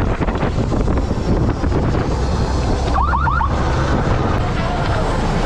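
Fishing boat's engine running steadily under wind and water noise. About three seconds in, four quick rising chirps sound in a short burst.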